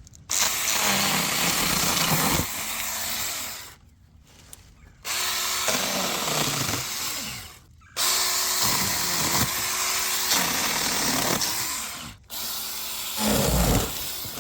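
Power saw cutting dead palm fronds in four runs of a few seconds each, its pitch shifting as it bites, with the motor stopping completely between cuts.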